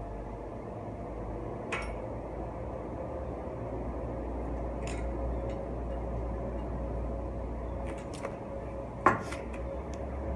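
Scattered metallic clinks and taps as parts are handled against a mountain bike frame. The loudest is a sharp clink about nine seconds in. Under them runs a steady low hum.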